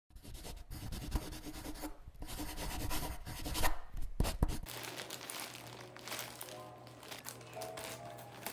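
Scratchy rasping and tearing noise, like brush strokes dragged over paper, that cuts off suddenly about four and a half seconds in. Soft background music with short held notes follows.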